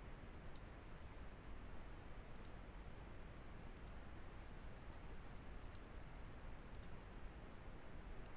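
Faint computer mouse button clicks, some in quick pairs, scattered about once a second over a low steady hiss.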